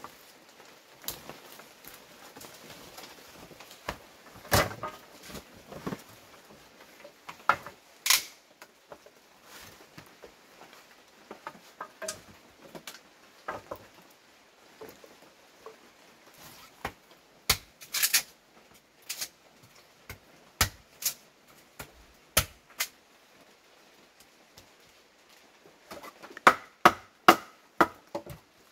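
Irregular knocks and thuds on hard objects, spaced a second or more apart, with a quick run of louder, sharper knocks near the end.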